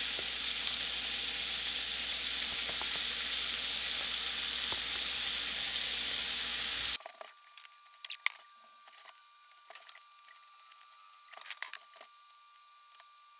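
Strips of deer heart sizzling steadily in butter in a hot frying pan. The sizzle cuts off abruptly about seven seconds in, and a few sharp clicks follow against a much quieter background.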